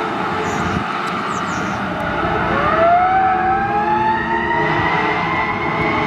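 Emergency vehicle running on the road, then about two and a half seconds in a siren starts up and rises slowly in pitch as it winds up into a wail.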